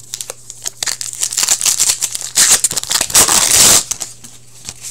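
Hockey trading cards being slid off a stack and flicked through by hand: a run of quick papery clicks and rustles that thickens into a louder sliding hiss about three seconds in, then stops.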